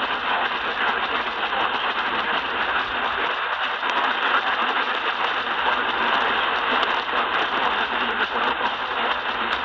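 Steady hiss of radio static, an even band-limited noise as heard through a radio receiver, with no voice or tones.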